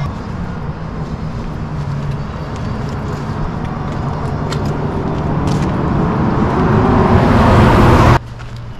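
Road traffic noise of a vehicle approaching, growing steadily louder, then cut off abruptly near the end.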